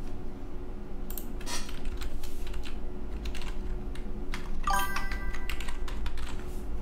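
Computer keyboard typing: a few scattered keystrokes. About five seconds in, a brief electronic chime of several steady tones sounds.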